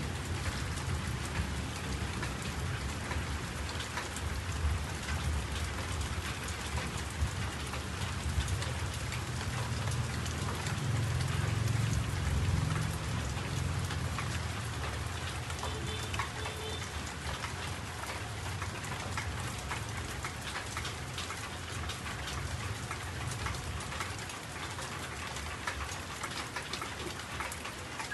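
Rain falling steadily, a dense patter of drops, with a low rumble that swells about ten to thirteen seconds in.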